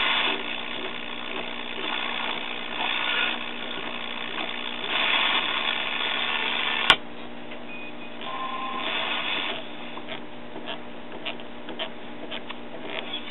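1966 Hallicrafters S-200 tube shortwave receiver being tuned across a band: hiss and static from its speaker, surging as signals come and go. A sharp click about seven seconds in as the band selector is turned, after which the static is quieter, with two brief whistles and scattered crackles.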